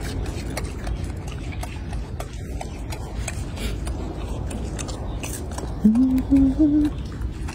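Golden snub-nosed monkeys chewing crunchy leafy greens: many faint, crisp crunching clicks over a steady low rumble. About six seconds in, a short pitched voice steps upward in pitch for about a second.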